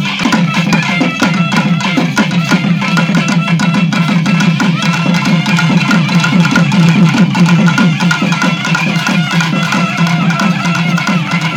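Live Tamil folk music for karakattam dancing: a nadaswaram plays a melody over fast, dense thavil drumming.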